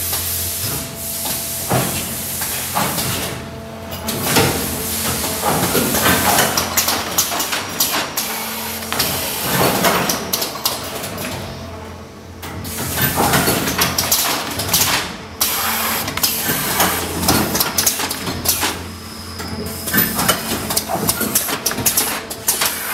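Two-station paper tray forming machine running: a steady low hum with irregular bursts of hiss and sharp knocks from its two press stations every second or two.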